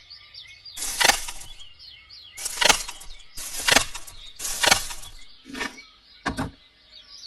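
Four short rushing, swishing noise bursts about a second apart, then two fainter, shorter ones, over faint birds chirping in the background.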